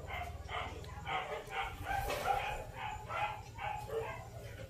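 A dog barking repeatedly in quick, short barks, about two to three a second, over a steady low hum.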